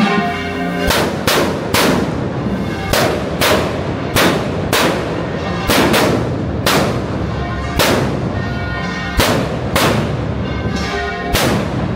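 Firework petards going off in a rapid, uneven series of loud bangs, about two a second, over church bells ringing.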